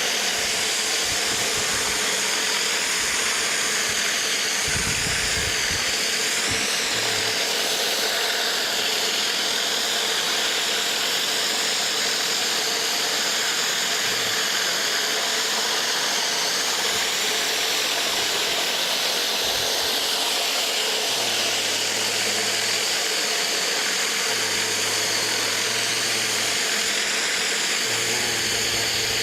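Pressure washer driving a rotary surface cleaner across a concrete driveway: a steady, loud hiss of high-pressure water spraying.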